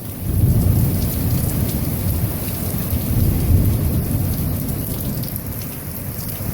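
Thunder rumbling over heavy rain. The rumble comes in suddenly just after the start, swells again a few seconds later, then slowly eases off, with the rain hissing steadily underneath.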